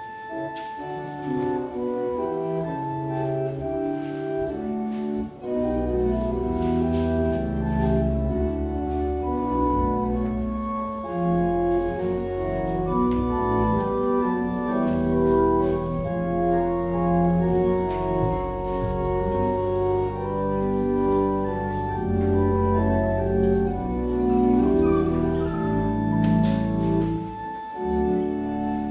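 Organ playing a slow instrumental piece in held chords, with deep pedal bass notes coming in about five seconds in.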